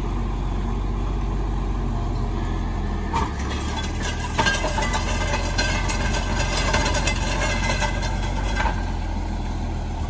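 John Deere tractor's diesel engine running steadily as it tows a Sunflower grain drill along a dirt road. From about four seconds in the drill's metal frame and openers rattle and clank for several seconds, then settle.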